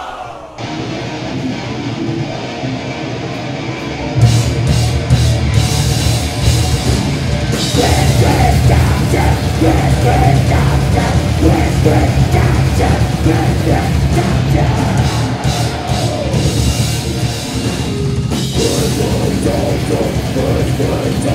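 A grindcore band playing live at full volume: distorted guitars, bass and drums. A quieter stretch opens it, then the whole band comes in loud about four seconds in, with vocals over it.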